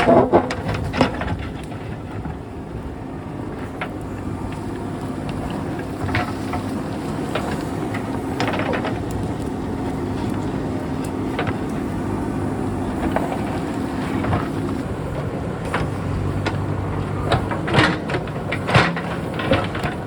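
JCB backhoe loader's diesel engine running steadily, with scattered clatters and scrapes of rock and soil as it digs, several in quick succession near the end.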